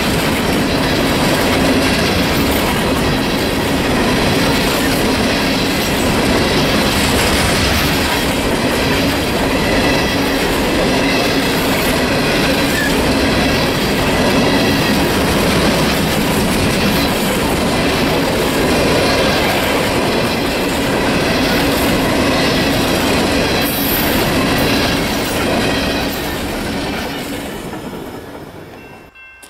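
Freight train of open-top hopper cars rolling past, steel wheels clattering over the rail joints. The noise eases off near the end as the last car goes by.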